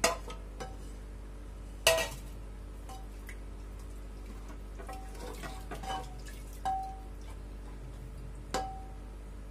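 A steel plate knocking against the rim of an aluminium pressure cooker, with the loudest clank about two seconds in. Then a wooden spoon stirs the rice and water inside, tapping the cooker's sides in short ringing clinks every second or so.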